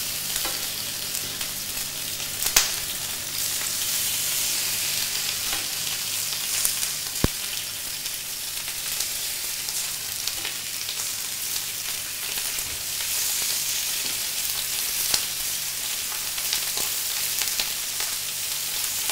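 Salmon steaks sizzling steadily on a hot grill as they are laid down one after another, with a few sharp clicks along the way.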